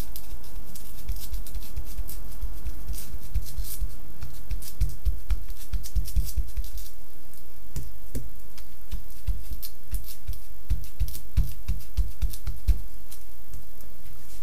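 Irregular light taps and crinkles of an ink pad being dabbed through a letter stencil onto a Reflectix foil-insulation car sunshade, with soft low thumps of the hand pressing on it.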